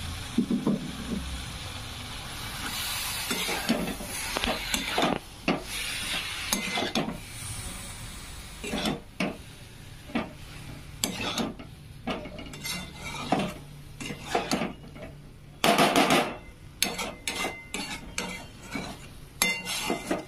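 Flat metal spatula scraping and knocking against a metal kadai as masala-coated cauliflower pieces are stirred and tossed, in irregular strokes, with frying sizzle underneath. The loudest is a longer scrape about sixteen seconds in.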